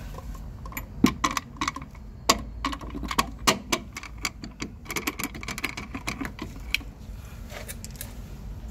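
Irregular sharp metallic clicks and clinks, a dozen or more over about six seconds, from tools and suspension parts being handled during a rear shock absorber install, over a low steady hum.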